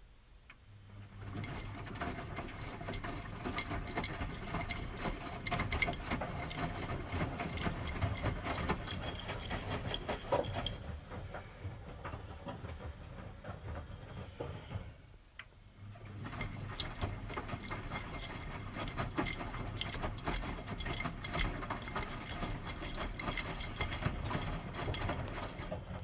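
Miele front-loading washing machine in its wash cycle: the drum starts turning about a second in, churning the wet laundry with a rumbling mechanical sound. About ten seconds in it eases off for a few seconds, then starts turning again.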